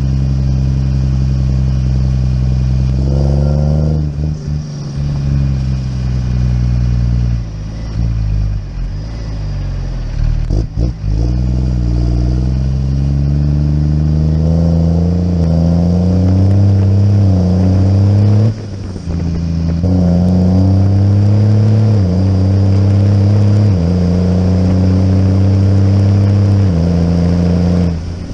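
Farm tractor's diesel engine pulling on the road, revs climbing and then stepping down again and again as it changes gear, with a short clatter about ten seconds in.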